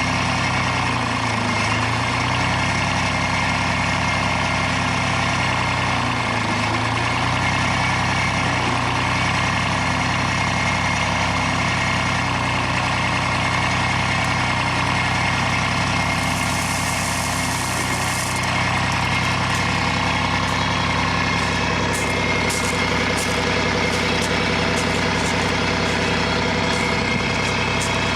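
A machine's engine running steadily, its pitch dipping briefly twice, about a second in and about six seconds in, as it takes load. A short hiss comes about two-thirds of the way through, and light clicks or knocks follow near the end.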